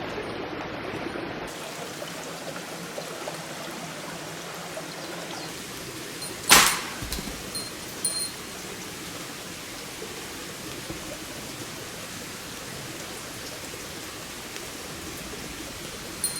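Steady rushing outdoor background noise. About six and a half seconds in comes one loud, sharp clank, followed by a few lighter clicks and a faint metallic ring.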